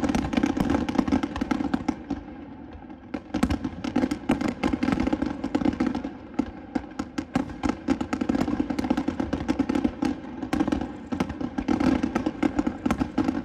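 Fireworks finale barrage: a rapid, dense string of bangs and crackling reports, easing briefly about two seconds in before building again.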